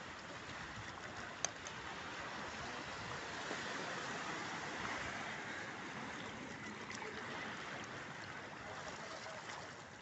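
Small waves washing in over a rocky coral shore: a steady hiss of surf and running water, with one brief sharp click about one and a half seconds in.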